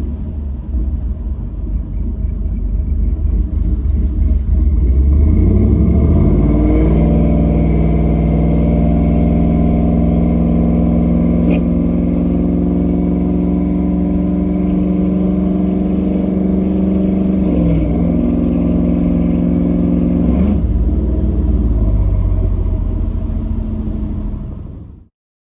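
LS-swapped Ford Lightning pickup's V8 under way, heard from the cab: the engine revs climb about five seconds in and hold in a steady, loud pull. A brief dip and recovery comes near eighteen seconds, like a gear change, and the engine eases off around twenty seconds. The sound cuts off abruptly near the end.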